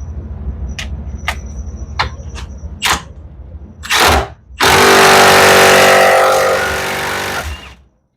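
A few sharp clicks, then a stubby impact wrench hammering a 10mm socket onto a bolt held in a vise, running hard for about three seconds before cutting off.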